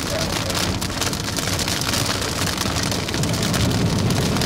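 Rain pelting a moving car, heard from inside the cabin over road noise; a low rumble grows louder about three seconds in.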